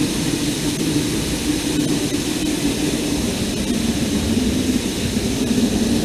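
Underground waterfall inside a cave: a steady rush of falling water.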